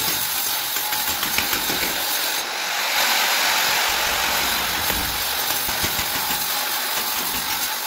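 Electric angle grinder cutting a groove into a plastered masonry wall: a steady grinding hiss over the running motor, louder and harsher from about two and a half seconds in.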